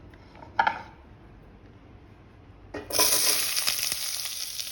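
A short clatter of a utensil or bowl, then, just under three seconds in, chopped onion and green chilies hit hot coconut oil in a pot and start a loud, steady sizzle.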